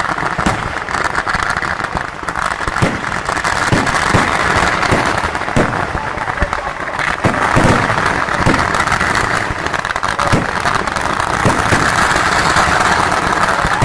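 Festival fireworks: a dense barrage of firecrackers going off in rapid succession, a continuous crackle with heavier bangs standing out every second or so.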